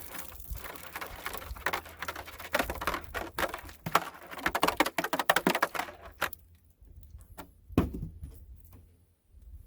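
Irregular rustling, clicking and tapping of hands working through water-filled plastic jugs to dig out a fired .22 bullet, dying down after about six seconds, with a single thump near the end.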